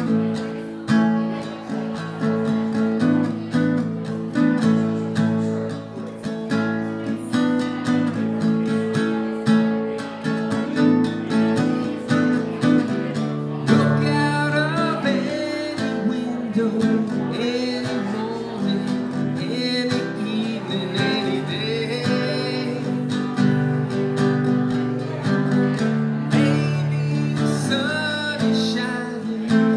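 Acoustic guitar strummed steadily, with a man starting to sing along about halfway through.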